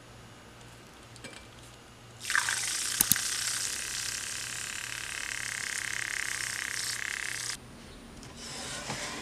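Handheld battery milk frother whisking coffee in a glass: a steady whir with churning liquid that starts about two seconds in and cuts off suddenly about five seconds later, with two sharp clicks near its start. A shorter, fainter rush follows near the end.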